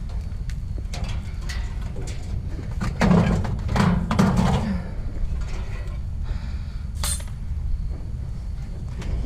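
Pieces of scrap metal clinking and clattering as they are handled and shifted, loudest about three to five seconds in, with a sharp clink about seven seconds in, over a steady low rumble.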